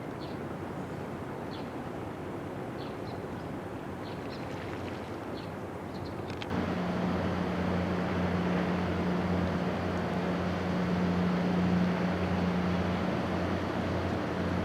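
Diamond Princess cruise ship's horn sounding one long, steady low blast that starts suddenly about six and a half seconds in, over wind and harbour noise.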